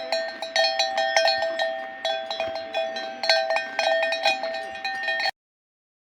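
Metal bells clanking in a quick, irregular jangle, the same two or three ringing pitches struck again and again; the sound cuts off abruptly about five seconds in.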